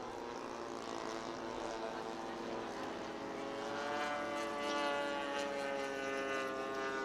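Radio-controlled model aircraft flying, its engine and propeller a steady drone that grows louder and rises slightly in pitch about halfway through, then eases off.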